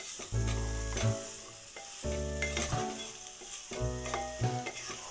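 Wooden spatula stirring boiled potatoes and soybean chunks through a sizzling spice masala in a pan, with a steady frying hiss. Background music plays over it, with a bass note about every two seconds.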